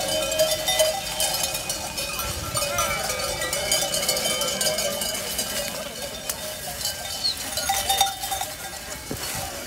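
Many bells worn by a moving flock of sheep, clinking and ringing without a break as the animals walk, their tones overlapping.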